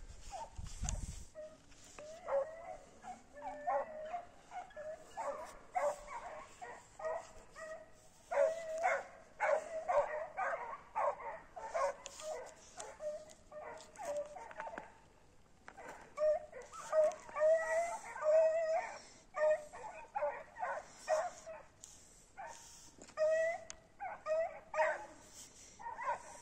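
Canines barking and yipping in rapid bouts of short, high calls, with pauses of a second or two between bouts.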